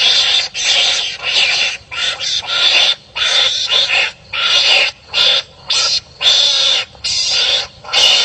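Wild animals' harsh, rasping calls, given over and over with short breaks, about one or two a second, like animals barking and squabbling at one another.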